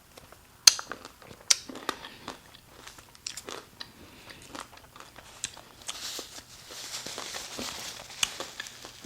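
Close-miked eating: sharp crunchy bites and wet chewing clicks, with a stretch of crinkling about two thirds of the way through.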